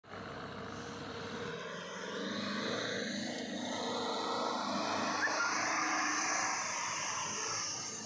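Maruti Suzuki Baleno hatchback's engine running under load as it drives through loose desert sand, growing louder about two seconds in.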